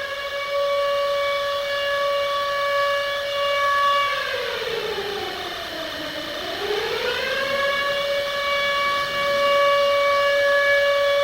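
Civil defence siren sounding an attack warning. It holds a steady high note, winds down to a low pitch about five seconds in, then winds back up and holds the high note again.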